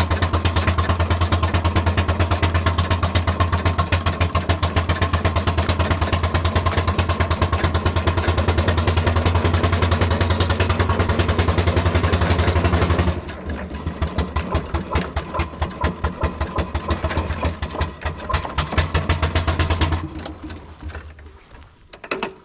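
Miniature steam traction engine running along on a concrete surface: a loud, rapid, even beat of mechanical clatter over a low hum. About 13 seconds in it drops to a quieter, more uneven beat as it slows, and near the end it dies away as the engine comes to a stop.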